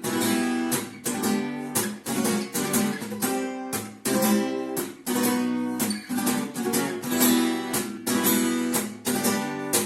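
Acoustic guitar strummed in a steady rhythm, chord after chord, with no singing over it.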